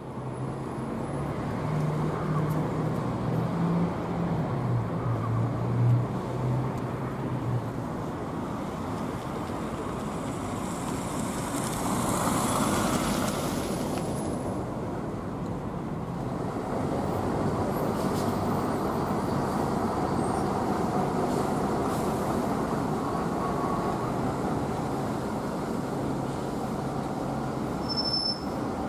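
Bus engines running at a bus station amid steady traffic noise. In the first several seconds one engine's pitch rises and falls close by. A brief hiss comes about twelve seconds in.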